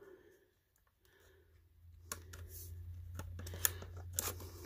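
Light plastic clicks and handling noise from a portable DVD player's case as fingers work at its stubborn lid latch, starting about two seconds in, over a low hum.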